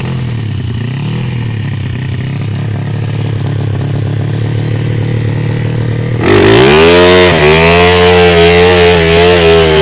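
Motorcycle engine running at steady low revs. About six seconds in, a much louder engine note sweeps up in pitch, holds high with a wavering tone and a rushing hiss, then drops away near the end.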